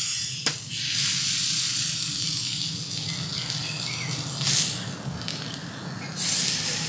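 Beef steak sizzling on a hot steel fire plate: a steady spitting hiss that swells briefly about four and a half seconds in and again near the end, with one sharp click about half a second in.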